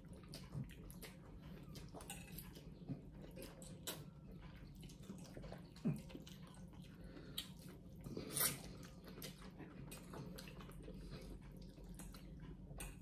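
Quiet eating sounds at the table: noodle soup being slurped from bowls, with small clicks of a spoon and fork against the bowls. The loudest slurp comes about eight and a half seconds in.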